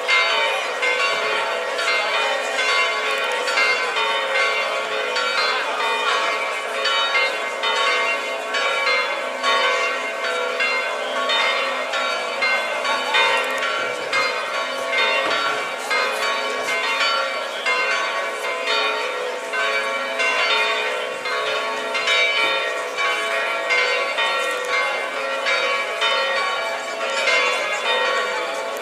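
Several bells ringing continuously, their strokes following one another rapidly so the tones of different pitches overlap and ring on into each other.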